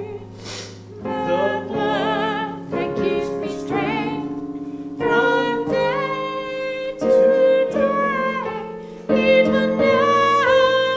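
A song sung with piano accompaniment; the voice holds long notes with vibrato.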